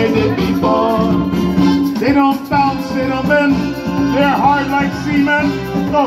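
Live band playing an upbeat island-style song with electric keyboard, guitar and congas, with singing over it.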